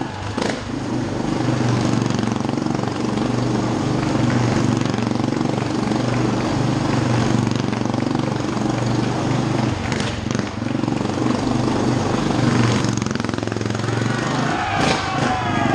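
Motorcycle engine running steadily as the bike circles the vertical wooden wall of a wall-of-death drum. A brief wavering, higher-pitched sound joins in near the end.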